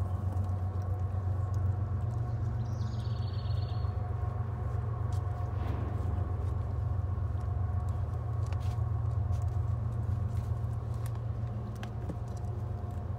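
A steady low mechanical hum, like a motor running, with a few faint clicks and rustles over it.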